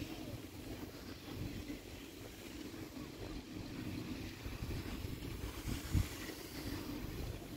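Wind on the microphone and a steady low rumble riding a fixed-grip quad chairlift, with one short, loud thump near the end as the chair's grip passes over a tower's sheave train.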